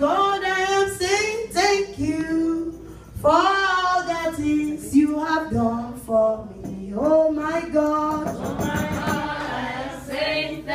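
A woman singing a gospel praise song in long held notes that step and slide between pitches, with a brief burst of noise about eight seconds in.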